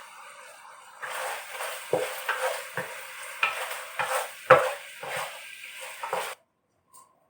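Chicken wings being stirred in a pan of sizzling, reduced cola and soy sauce, the spatula knocking against the pan several times. The sound cuts off suddenly about six seconds in.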